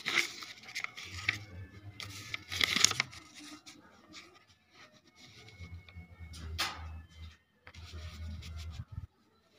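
Handling noise: a paper banknote and a paper slip scratching and rustling as hands move them over cloth, in several short bursts over a low rumble.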